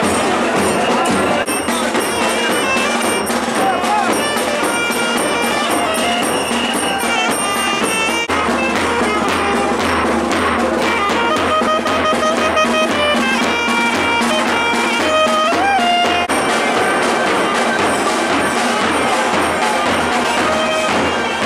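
Procession band music: a saxophone playing an ornamented melody with bending, gliding notes over fast, loud strokes on large bass drums.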